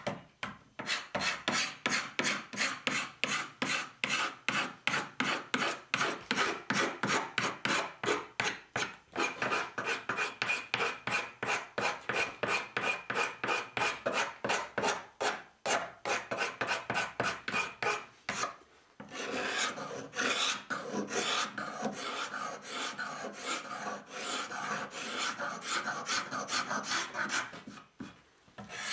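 Hand tool shaving and rasping the edge of an apple-wood board in quick, even strokes, about three a second. After a short pause about two-thirds of the way in, the strokes run closer together into a denser scraping.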